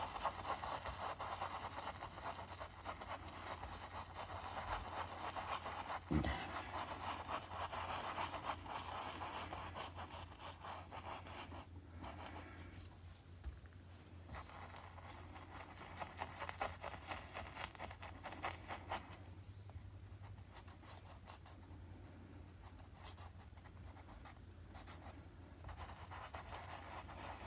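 Paintbrush bristles scrubbing and dabbing paint onto a canvas: soft, scratchy rubbing strokes that come in bouts, busier in the first half and fading to quieter patches with short pauses later on.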